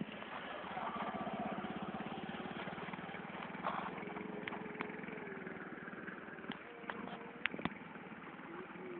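A small engine running with a rapid, even pulse, loudest in the first few seconds and then easing, with a few scattered clicks over it.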